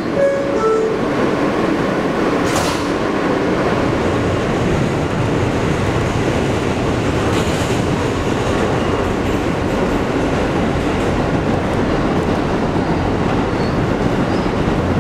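Inside a New York City Subway R160 car as the train runs along the line: a steady, even noise of wheels on rail and the moving car body.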